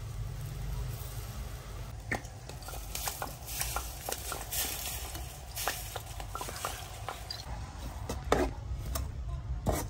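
A metal spatula stirs and scrapes in an aluminium wok of chopped red chilies frying in oil, with sugar and fish sauce going in. From about two seconds in come scattered clicks and scrapes of metal on the wok, the loudest near the end, over a faint sizzle.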